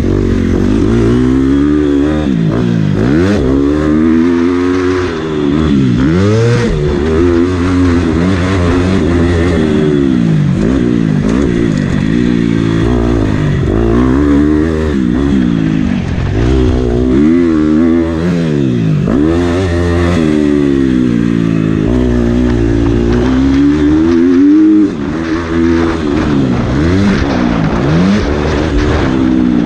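Motocross bike engine heard from on board, revving up and down as the rider accelerates, shifts and rolls off between corners. The engine note drops sharply once, about five seconds before the end, then picks back up.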